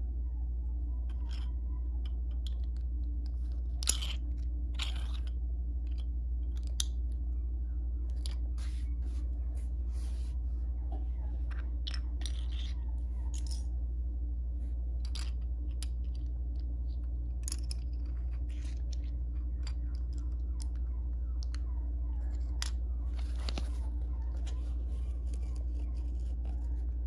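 Plastic LEGO bricks clicking and clacking as pieces are picked up, handled and pressed together, in scattered irregular clicks with the sharpest about four seconds in, over a steady low hum.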